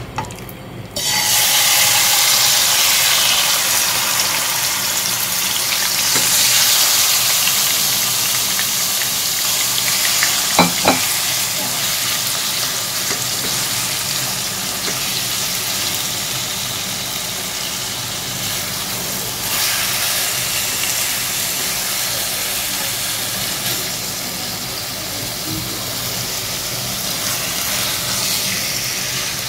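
Marinated chicken strips landing in hot oil in a pan about a second in and frying with a loud, steady sizzle as they are stirred with a silicone spatula. A couple of brief knocks near the middle.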